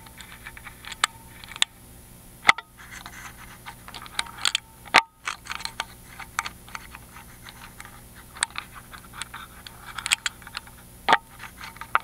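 Lock picking heard through a microphone clipped to a Miwa EC magnetic cylinder lock: a pick scraping and tapping its spooled magnetic pins under tension, a run of small irregular clicks with a few louder sharp clicks about two and a half, five and eleven seconds in.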